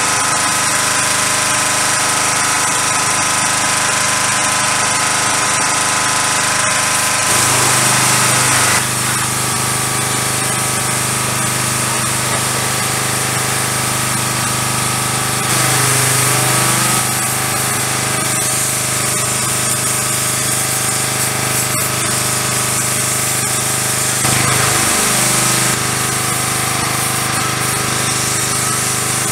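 Pressure washer running steadily with the hiss of its spray. Three times the sound briefly gets louder and the pump's pitch dips and comes back up.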